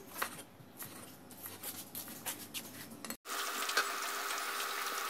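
Kitchen knife slicing a banana flower on a wooden chopping board: quick irregular taps of the blade against the wood. About three seconds in, after a cut, chicken pieces deep-frying in a pan of oil give a steady sizzle.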